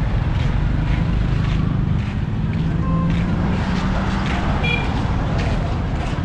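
Motor vehicle engines running steadily close by in street noise, with a short high beep a little past halfway through.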